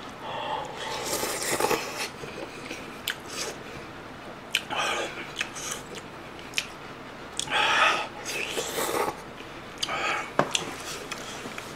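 Close-miked eating sounds: noodles and hot broth slurped from a spoon twice, about half a second in and again around eight seconds, with wet chewing and small sharp clicks in between.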